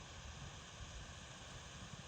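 Faint steady hiss with an uneven low rumble: outdoor background noise, with no distinct sound in it.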